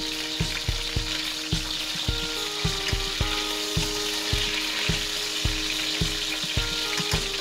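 Rabbit pieces sizzling steadily as they brown in hot oil in a pot, turned over with tongs and a fork. Soft background music with a steady beat runs underneath.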